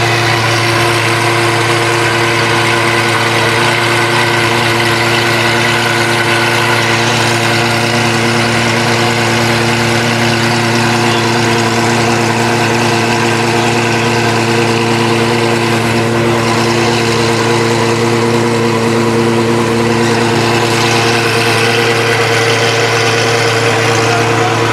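A hypercar's engine idling steadily at a constant, even note, with no revving.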